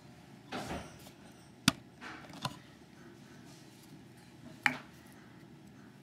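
Small sharp clicks from handling a brass lock cylinder and small steel tools: two crisp clicks about three seconds apart, a softer tap between them and a brief rustle near the start.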